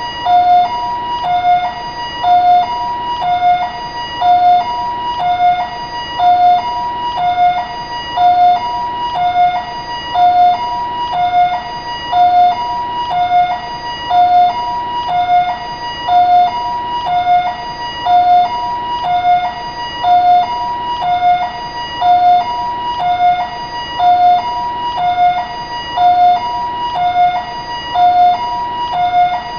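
Taiwanese ambulance siren sounding its two-tone hi-lo call: a lower note and a higher note alternating, each about half a second long, repeating steadily.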